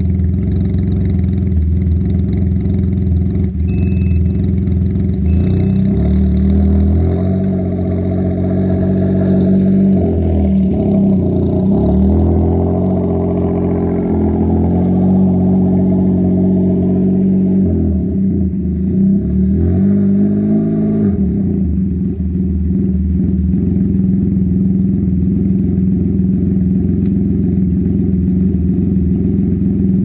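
Can-Am Ryker Rally's three-cylinder engine running through an aftermarket exhaust, loud throughout. It revs up and eases back several times as the trike rides close past midway.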